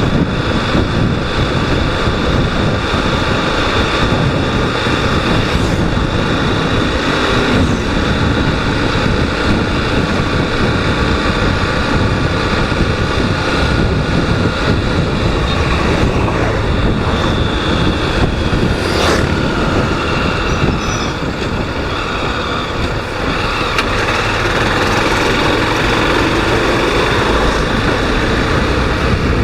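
Honda Twister 250 motorcycle being ridden, its single-cylinder engine running steadily under way. The engine eases off briefly about two-thirds of the way through, and there is one short click near the middle.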